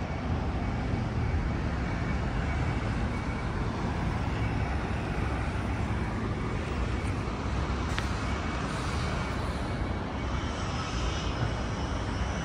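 Steady city road traffic noise from passing cars, with a single sharp click about eight seconds in.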